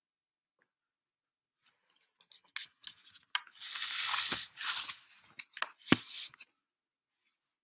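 Rustling, scraping and sharp knocks of the recording phone or tablet being handled right at its microphone, with the loudest knock about six seconds in.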